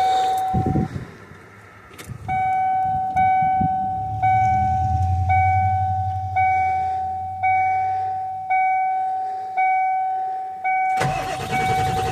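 The truck's cab warning chime dinging about once a second, with the key on in a 1995 Ford F-250 7.3 diesel that cranks but will not start. A low rumble sounds in the middle, and a louder, steady mechanical noise sets in near the end.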